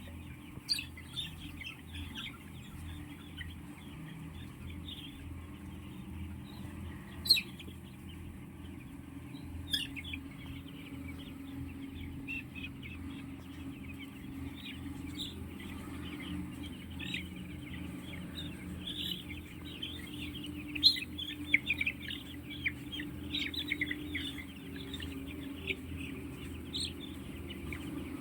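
A flock of chickens in a poultry house, many birds clucking and calling over one another the whole time, over a steady low hum. A few sharp clicks stand out, one about seven seconds in and others near ten and twenty-one seconds.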